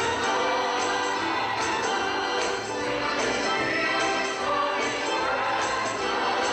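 Gospel choir singing with instrumental accompaniment and a tambourine shaken and struck to the beat.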